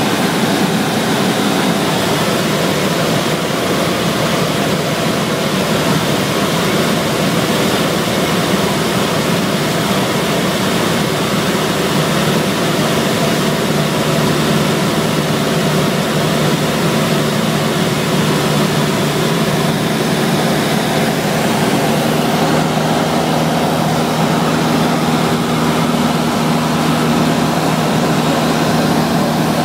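Cessna 172SP's four-cylinder Lycoming IO-360 engine and propeller droning steadily in flight, heard loud from inside the cabin.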